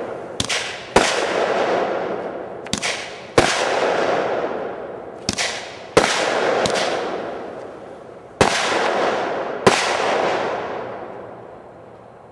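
Old 'Gulf War' consumer aerial firework going off in the sky: about nine sharp bangs, several in close pairs, each followed by a long rolling echo that fades over a couple of seconds. A couple of its shots don't go, which the shooter puts down to the item's age.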